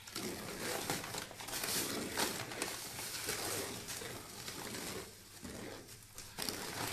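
Paper sack of powdered tile adhesive rustling and crinkling as it is shaken and the powder is sprinkled over water in a mixing tray, in uneven bursts with a couple of brief lulls.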